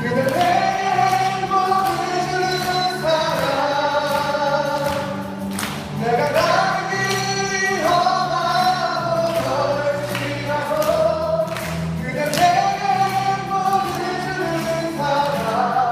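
A man singing a slow Korean love song into a microphone over backing accompaniment, with long held notes.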